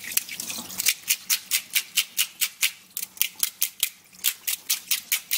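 Quick scraping strokes, about four a second, of a brush made of bundled wooden skewers tied with an elastic band, scrubbing the blood out along the backbone inside a gutted black sea bream. The strokes pause briefly about four seconds in, then go on.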